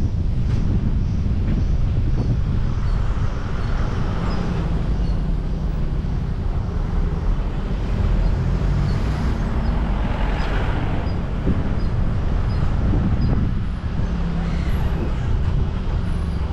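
A moving car's engine and road noise as a steady low rumble, with the hiss swelling louder about four seconds and ten seconds in.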